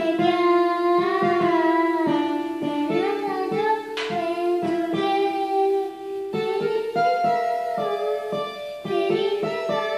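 Yamaha PSR-I455 electronic keyboard played by hand: a melody over held chords and a steady beat, with a sharp crash about four seconds in.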